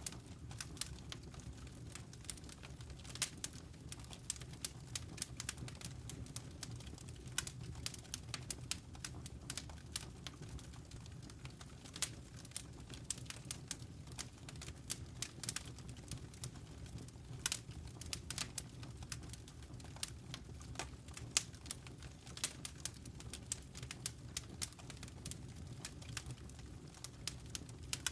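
Wood fire burning in a fireplace: frequent irregular crackles and pops over a steady low rumble of the flames.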